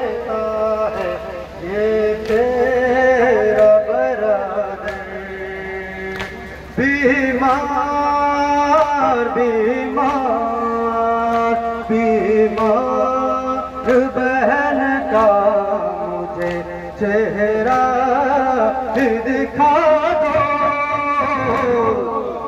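A male voice sings a noha, a Shia Muharram lament, into a microphone and is amplified over a loudspeaker in long rising and falling phrases. Sharp slaps come roughly once a second, from the crowd's matam (beating with the hands).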